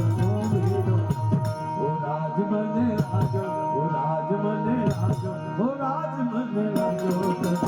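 Indian folk-style music: a sliding melody over a steady held drone, with occasional percussion strokes.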